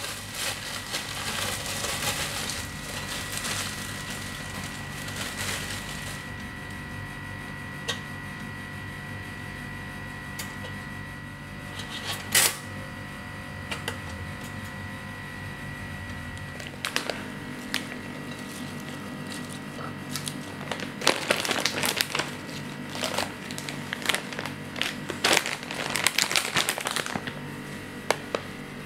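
Kitchen handling sounds over a steady faint hum with a thin high tone: a single sharp click about twelve seconds in as a pop-up toaster's lever is pressed down, then from about twenty seconds on a run of crisp rustles and small clicks as fresh salad leaves are handled onto a plate.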